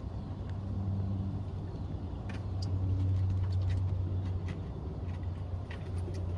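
Low, steady hum of a running vehicle engine, growing louder about three seconds in, with a few faint scattered clicks over it.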